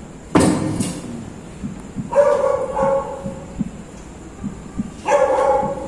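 A dog barking: one sharp bark just after the start, then two longer, drawn-out barks about two and five seconds in.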